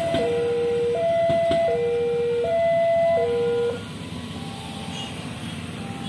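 Railway level-crossing warning siren: an electronic two-tone alarm switching between a lower and a higher tone about every three-quarters of a second. It stops about three and a half seconds in, leaving a steady rumble.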